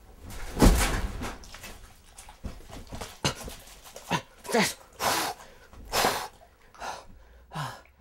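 A man yelping and crying out in a run of short, falling-pitched yelps, roughly one a second, the loudest about half a second in.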